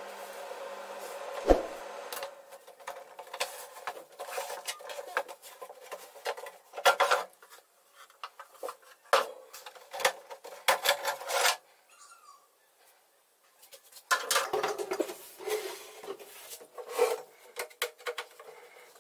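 Hard objects being handled and set down: irregular clicks, clatters and scraping, with a sharp knock about a second and a half in and a pause of about two seconds near the end.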